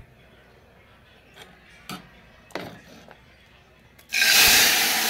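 Ladleful of dal poured into hot tempering oil with spices (tadka, baghar), setting off a loud hissing sizzle about four seconds in. Before it, a few light taps of utensils.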